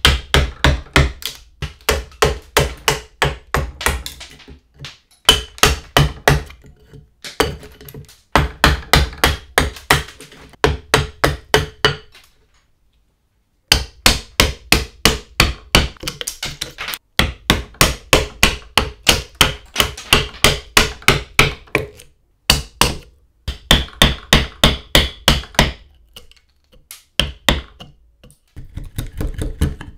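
Steel hammer striking a wood chisel as it cuts into a wooden axe-handle blank held in a vise: quick runs of sharp strikes, about four a second, chopping stop cuts and splitting out chips. Short breaks fall between runs, with a silent gap of about a second just before halfway.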